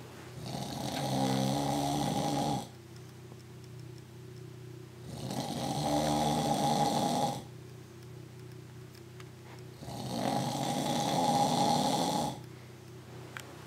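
A man snoring in his sleep: three long snores about five seconds apart, each building up gradually and then cutting off abruptly.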